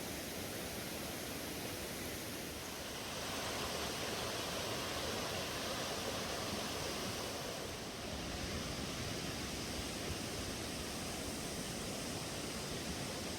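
Steady rushing of flowing water from a stream or waterfall, an even hiss that shifts slightly in tone about three seconds in and again near eight seconds.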